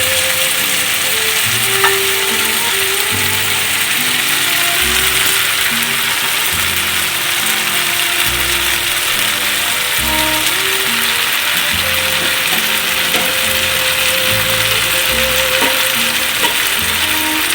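Chicken sizzling in a pan as it cooks with a little water, a steady hiss, over background music with held notes.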